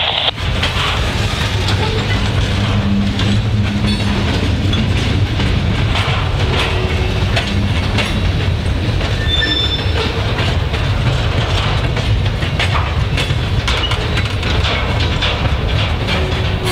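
Norfolk Southern freight train of covered hoppers and a loaded gondola rolling past with a steady, loud rumble, wheels clicking over rail joints and giving a few brief squeals.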